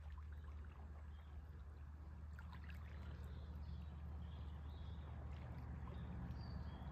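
Small waves lapping and trickling at the shoreline, under a steady low rumble.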